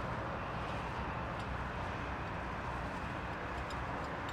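Steady low outdoor background rumble with a few faint light clicks.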